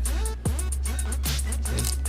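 Background hip hop beat: quick hi-hat ticks and drums over heavy bass, with a deep bass note sliding down in pitch about halfway through.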